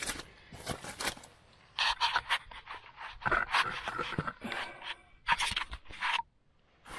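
Irregular scraping and knocking of metal parts being handled, with heavy breathing.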